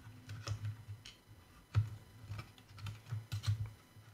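Metal pry tool working around the seam of a Hubsan Zino Pro drone's plastic top cover, making a series of small, irregular plastic clicks and taps as the cover is eased off.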